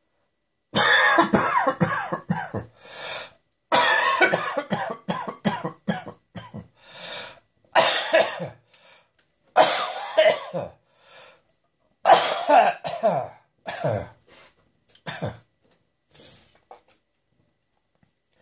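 A person coughing harshly and dryly in about five fits of rapid coughs with short pauses between them, fading to a few faint sounds near the end.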